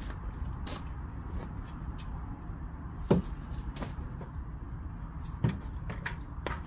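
Gardening handling sounds: a short shovel scraping and clicking in the soil of a wooden raised bed, with two dull thumps of the tool and bucket against the wooden boards, about three and five and a half seconds in, over a steady low rumble.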